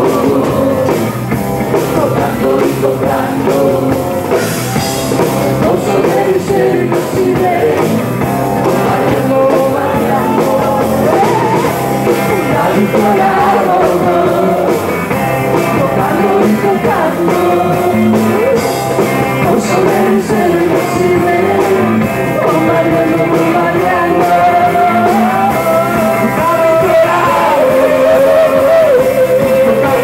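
Rock band playing live: a male lead singer over electric guitar and a full band, picked up by a home camcorder's built-in microphone in the audience.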